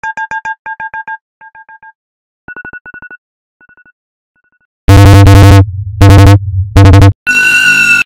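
iPhone alarm tone, edited into variations: short groups of rapid beeps that fade quieter and sparser over the first four seconds. About five seconds in, the tone comes back as loud, heavily distorted, bass-heavy blasts in several bursts.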